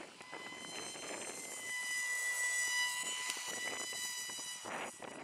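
Small brushed electric motor and propeller of a 330 mm 1S foam flying wing whining overhead in flight, a steady high-pitched buzz that grows louder around the middle and fades near the end.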